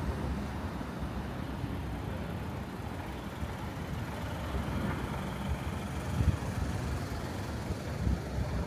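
Steady low rumble of road traffic on a city street, with a brief louder swell about six seconds in.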